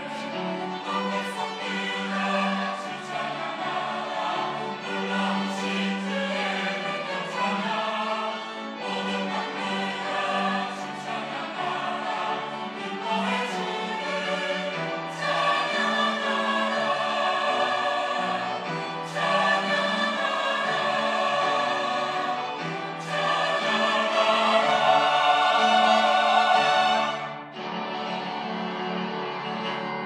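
Church choir singing an anthem, growing louder through the second half to a long, loud held chord that cuts off suddenly about four seconds before the end, after which a softer passage continues.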